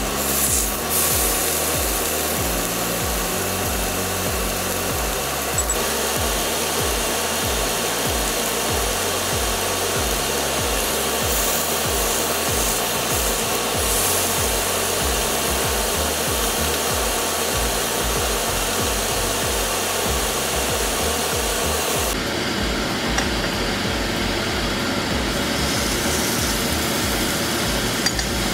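Background music with a bass line over a constant hiss of lamb chops sizzling as they sear in oil in a hot frying pan. About 22 seconds in the hiss turns duller, losing its highest part.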